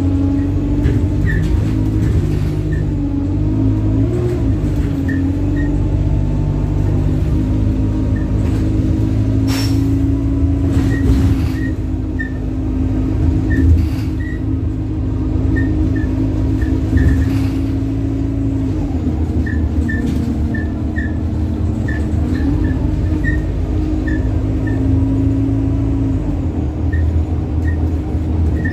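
Alexander Dennis Enviro 200 single-deck bus heard from inside the saloon while under way, its engine and driveline drone shifting pitch up and down several times as it changes speed. Short high squeaks come on and off throughout, with a few knocks about ten seconds in.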